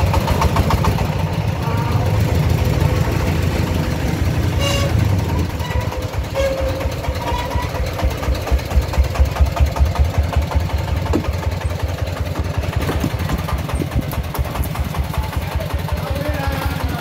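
Single-cylinder diesel engine of a công nông, a home-built Vietnamese three-wheel farm truck, running. It runs evenly for the first five seconds, then settles into a slow, steady thumping of about four to five beats a second.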